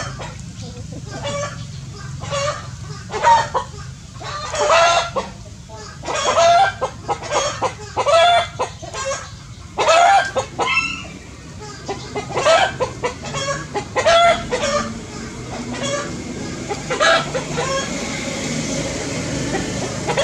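Repeated short, pitched animal calls in irregular bouts, like clucking, with a longer call about ten seconds in and fewer calls near the end.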